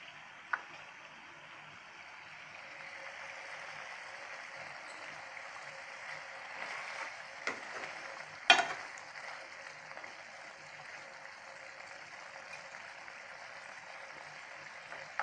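Bitter gourd curry gravy simmering in a pan with a steady sizzling, bubbling hiss while a spoon stirs it. A few clicks of the spoon against the pan, the sharpest and loudest about eight and a half seconds in.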